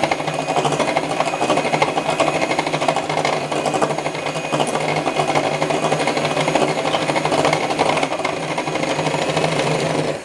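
Electric hand mixer running steadily at one speed, its twin wire beaters whisking eggs and milk in a glass bowl, with a steady motor hum; it is switched off at the very end.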